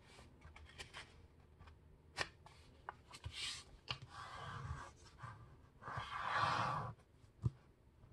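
A sheet of printer paper being folded in half and creased by hand: soft taps and paper rustles, then several sliding swishes as fingers run along the fold, the longest about six seconds in, and a sharp tap near the end.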